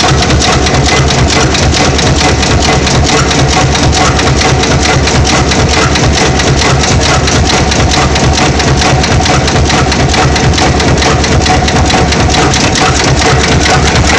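Expanded metal mesh machine running: its toothed blade slits and stretches the metal sheet in rapid, even strokes, a loud continuous mechanical clatter over a steady low hum.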